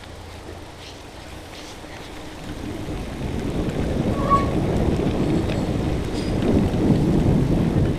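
Wind buffeting the microphone, with tyre noise from a bicycle riding along a wet canal towpath; it grows much louder about two and a half seconds in. There is a brief squeak near the middle.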